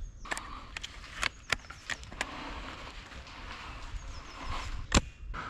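Scattered sharp cracks of airsoft gunfire over a steady outdoor hiss: several in the first couple of seconds, and the loudest crack just before the end.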